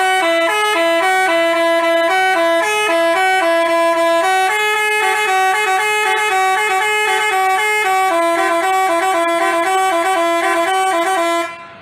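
Telolet multi-tone bus horn of the Basuri type playing a fast, jingly melody, its notes hopping quickly between a few pitches. It is loud and cuts off sharply near the end.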